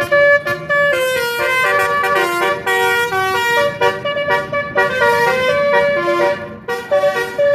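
Basuri telolet musical horn mounted in trumpets on a pickup's roof, playing a tune: a fast run of loud notes stepping up and down in pitch.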